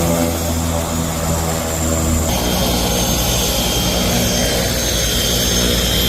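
Heavy-lift helicopter running close by: a high turbine whine over the low, even thrum of the rotor. The sound shifts abruptly about two seconds in.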